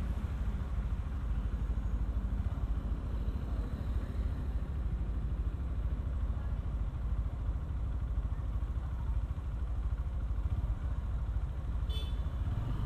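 Honda motorcycle engine idling steadily at a standstill, a low even rumble. A short high chirp sounds once near the end.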